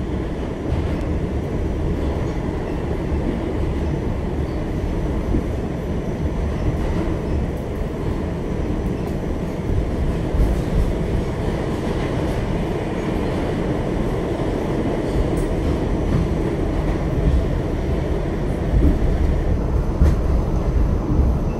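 New York City subway train running along the track, heard from inside the car: a steady, loud rumble of wheels on the rails.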